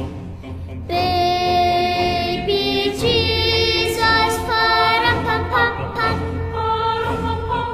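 Music: a child's voice singing a melody over a steady low drumbeat, the voice coming in about a second in.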